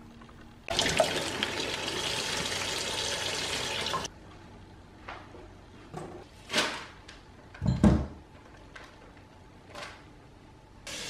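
Water running hard for about three seconds, stopping abruptly, then a few clanks and knocks from a stainless steel cooking pot being handled. The loudest knock, with a dull thump, comes about eight seconds in.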